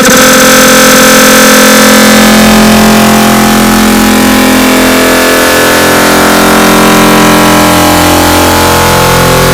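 A sneeze sound effect run through stacked digital audio effects and sped up far past recognition, leaving a loud, distorted, steady drone of many held tones. The lower tones fade and the mix shifts slightly near the end.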